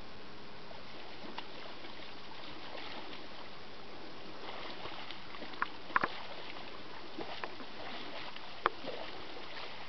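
Bull moose wading through shallow marsh water, its legs sloshing and splashing, with a few sharp splashes just past halfway and near the end over a steady background hiss.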